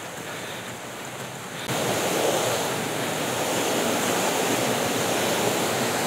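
Steady rush of falling water from a waterfall, jumping sharply louder under two seconds in and then holding steady.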